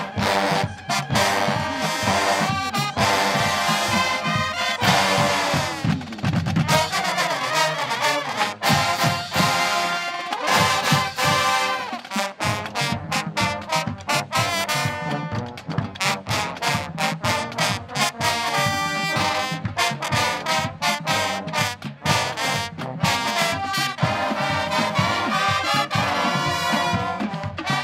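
HBCU show-style marching band playing: a full brass section of trombones and trumpets carrying the tune over a steady drumline beat.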